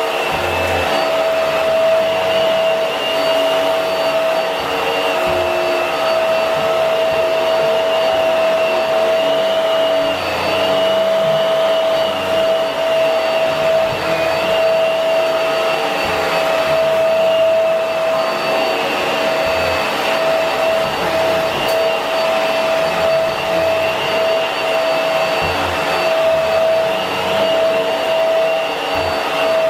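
Hoover upright vacuum cleaner with a swivel head running steadily on a small carpet: a loud, constant motor whine over a rushing hiss of suction, with small dips in level as it is pushed along.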